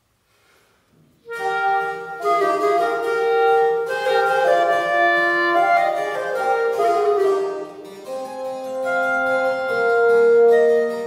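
Clarinet, bassoon and harpsichord start playing a Baroque chamber sonata together about a second in, after a brief silence.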